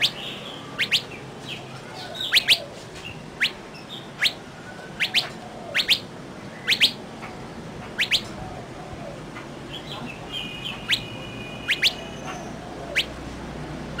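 Songbirds calling: short, sharply falling whistled notes repeated about once a second, often in pairs, over a steady background hiss. A different, steadier call joins briefly about ten seconds in.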